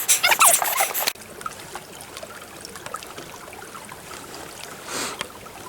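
Steady rush of running water from a stream or falls. It follows about a second of high, wavering squeaky sounds that cut off abruptly.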